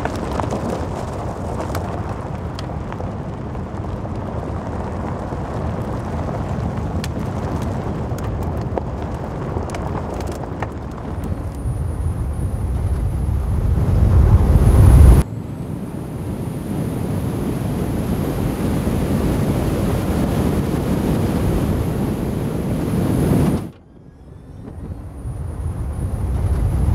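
Chevrolet Silverado EV Trail Boss electric pickup driving fast on dirt: tyre rumble and wind noise with no engine note. The rumble swells as the truck passes close about halfway through and cuts off suddenly twice, once at that point and again near the end, then builds back up.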